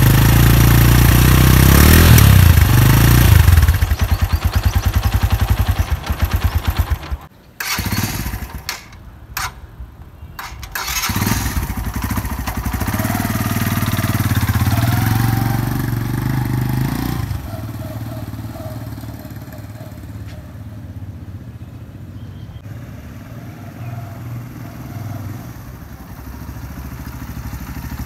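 Suzuki GS 150's single-cylinder four-stroke engine running through its stock company-fitted exhaust, revved up and down close to the muffler in the first few seconds. After a few short dropouts around eight to ten seconds in it runs loud and steady again, then becomes quieter from about seventeen seconds as the bike rides off.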